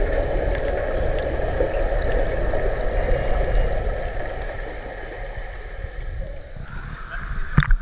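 Steady underwater rush of water around a camera moving through a swimming pool. It eases off about five seconds in, and a single sharp knock comes just before the end.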